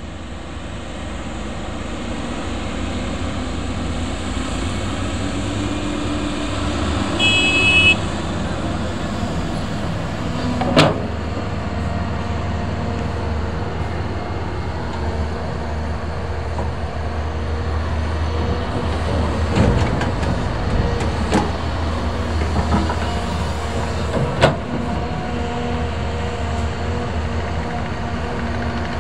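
Caterpillar 320D hydraulic excavator's diesel engine running under load as it digs sand and loads a dump truck, a steady low rumble. A sharp knock comes about eleven seconds in and several smaller knocks between about twenty and twenty-five seconds in, with a short high tone near seven seconds.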